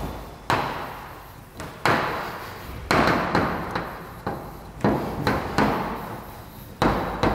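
Chalk writing on a blackboard: about a dozen sharp, irregularly spaced taps as the chalk strikes the board, each trailing off briefly.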